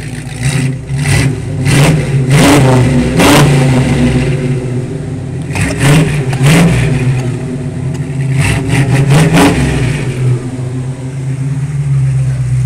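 283 small-block Chevy V8 in an S10 pickup, running through headers, a Cherry Bomb Vortex muffler and no catalytic converters. It idles and is revved in repeated quick throttle blips, dropping back to idle between them, with a fast cluster of blips near the end.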